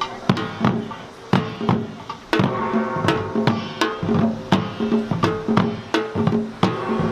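Korean samul nori ensemble playing in seated style: janggu hourglass drums, buk barrel drum and small kkwaenggwari gong struck in a fast, driving rhythm of about three strikes a second, with bright metal ringing over the drums. The playing grows louder and denser about two and a half seconds in.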